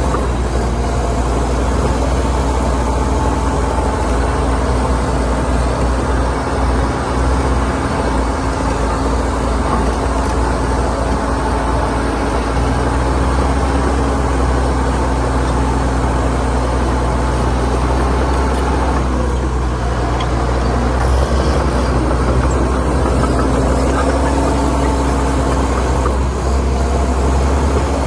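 Heavy diesel engines of earthmoving machines running steadily under load, the engine note shifting a few times as they work.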